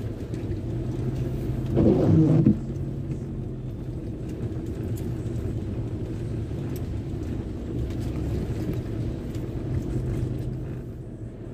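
Car engine running steadily at low speed, heard from inside the cabin, with tyres on a wet, water-covered road. A brief louder burst comes about two seconds in.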